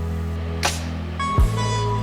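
Background music: steady low bass and held synth tones, with a sharp percussive hit about a third of the way in and a deep kick-drum hit about three-quarters of the way in.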